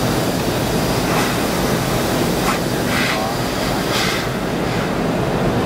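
Steady loud rushing and rumbling of a Boeing 717 airliner heard from inside the cabin: the jet engines and the airflow, with a few short louder swishes along the way.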